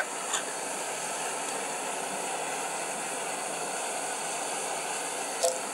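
Steady hiss of a JetBoil canister gas stove burning at full flame under a frying pan of hot butter, with a small click about a third of a second in and a brief sharp sound near the end.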